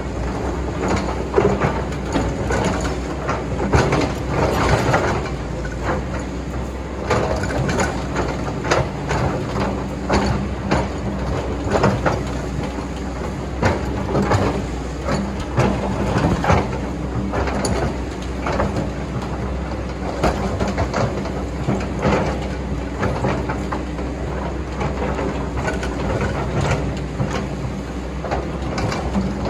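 Excavator digging, its engine running steadily under frequent short clanks, knocks and scrapes from the working machine.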